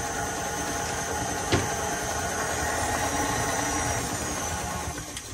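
KitchenAid Artisan stand mixer running steadily, its flat beater mixing a runny pie batter in the stainless steel bowl, with one sharp tick about a second and a half in. The mixer is switched off near the end and the hum dies away.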